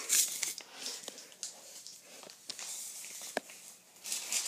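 Soft rustles and small clicks of handling in a small room, with one sharper click about three and a half seconds in.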